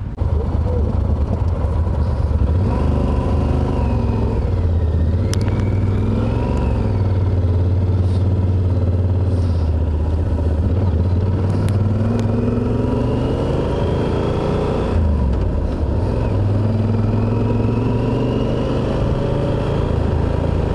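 Yamaha Super Ténéré parallel-twin engine heard while riding, its note climbing in long rises as the bike accelerates through the gears, over a steady low rumble.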